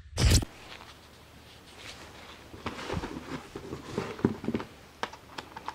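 A loud short thump just after the start, then faint scattered taps and clicks of something being handled.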